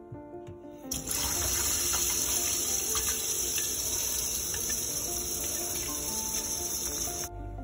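Tap water running from a faucet into a stainless steel bowl of basmati rice in a sink, filling it to rinse off the starch. The flow starts about a second in and stops shortly before the end.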